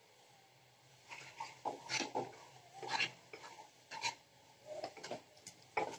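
Wooden spatula scraping and stirring peanut powder into hot jaggery syrup in a nonstick kadai, in irregular strokes that start about a second in, as the mixture thickens into burfi dough.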